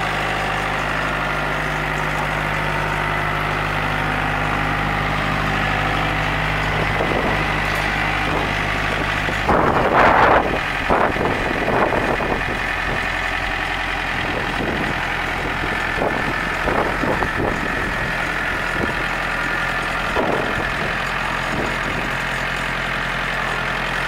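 John Deere 970 compact tractor's three-cylinder diesel engine running steadily at idle. About ten seconds in the engine note changes and a burst of louder mechanical noise comes as the 440 front loader is worked to raise the bucket, followed by a few shorter bursts.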